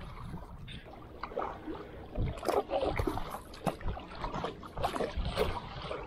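Paddling a small wooden canoe: a hand paddle dipping and pulling through the water in irregular splashy strokes, with water sloshing against the hull, busier from about two seconds in.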